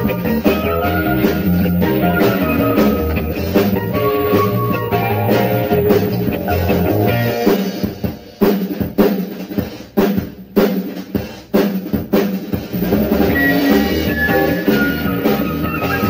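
Background rock music with a full band and drum kit. About halfway through, the bass and guitar drop out for a few seconds, leaving mostly snare and rimshot hits, then the full band comes back in.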